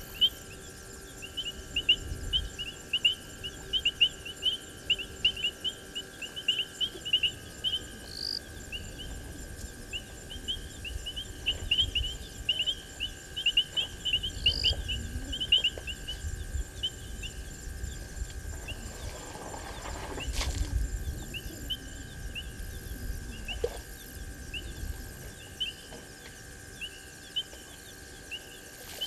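Runs of short, high chirps repeating several times a second from a small animal calling at night, over a steady faint tone. Low thumps and rumbles come now and then, with a brief rushing noise about twenty seconds in.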